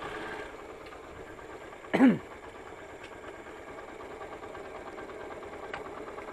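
Yamaha SZ motorcycle's single-cylinder four-stroke engine running steadily. About two seconds in, a single short, loud call with a falling pitch cuts across it.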